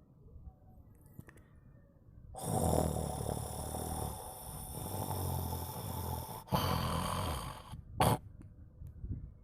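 Sleeping cat snoring. After a quiet couple of seconds comes a long snoring breath of about four seconds with a low buzz, then a shorter one and a brief burst about eight seconds in.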